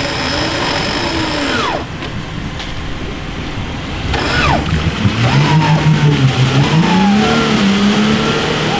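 Jeep engine revving as the Jeep churns through deep mud, its pitch rising and falling. The engine gets louder from about five seconds in.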